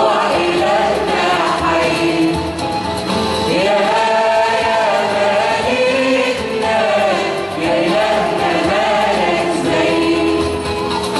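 A mixed choir singing an Arabic Christian hymn, with long held notes that glide from one pitch to the next.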